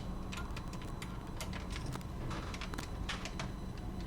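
Scattered small clicks and ticks of hands and a tool working on a cassette walkman's mechanism while a new rubber drive belt is fitted, over a steady low hum.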